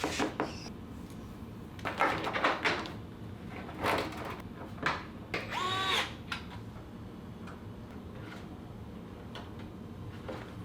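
Clicks, knocks and clatter of computer parts being handled and fitted during a PC build, with a brief pitched squeal about six seconds in.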